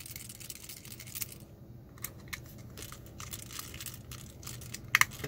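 Small clicks and scraping of a precision screwdriver turning screws out of a plastic shock-stick casing, with two sharper clicks near the end.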